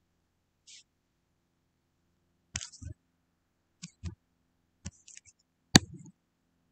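A few short, sharp clicks and taps from the computer pointing device, some in close pairs, while writing is erased on a digital whiteboard. A faint steady hum lies underneath.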